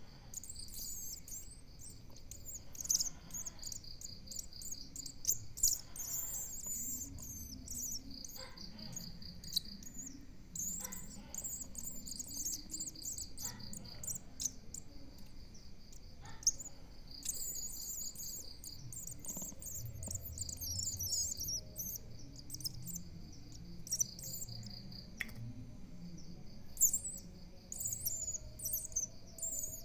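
High, thin bird chirps, irregular and repeated, over an insect trilling in runs of a second or two that stop and start again.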